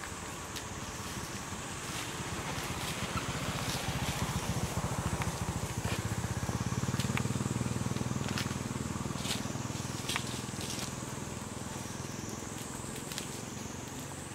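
A motor vehicle engine passing nearby, growing louder toward the middle and fading after, over a steady high-pitched drone, with scattered light cracks of twigs and dry leaves.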